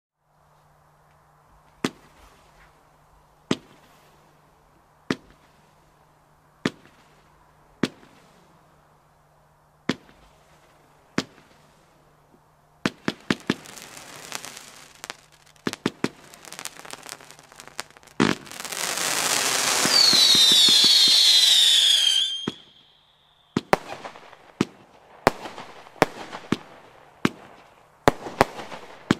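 Lesli "Böser Hund" firework battery firing shot after shot: single shots about every second and a half, then denser shots with crackle. In the middle comes a loud stretch of continuous hissing crackle with high whistles falling in pitch. Quicker bangs and crackle follow near the end.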